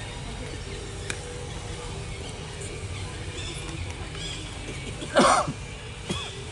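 A monkey giving one loud, shrill squeal about five seconds in, over faint, short chirping calls and a steady outdoor background.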